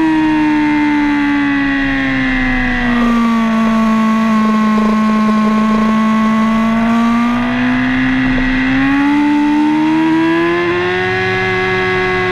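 Sport bike engine running at high revs on a race track, its pitch sagging through a leaned-over corner and then climbing as the bike accelerates out, with traction control regulating power to the rear wheel. Wind rushes steadily underneath.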